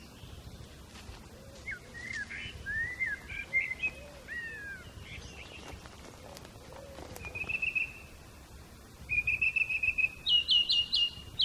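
Songbird singing in the evening: a few curved chirping notes, then a fast trill near the end that climbs into a run of sharp, louder notes.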